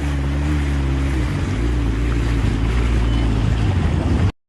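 Motorboat engine running and getting louder, its steady hum breaking into a rougher, noisier sound about a second in, then cut off suddenly near the end.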